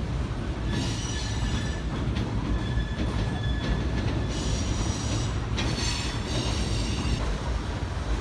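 Covered hopper cars of a CSX grain train rolling over a steel girder viaduct: a steady heavy rumble, with high-pitched wheel squeal rising over it in three spells.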